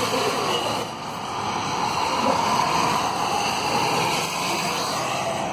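Steady hiss of tyres on a wet road, with no pile-driver strikes heard.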